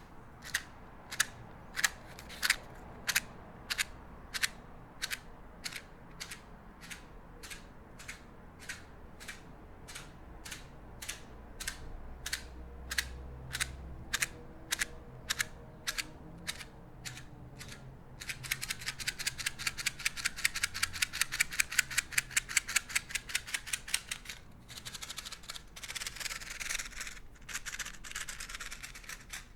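Sharp, evenly spaced clicks at a little under two a second. About two-thirds of the way through they give way to a fast, dense run of rapid clicks, which breaks off briefly and then resumes.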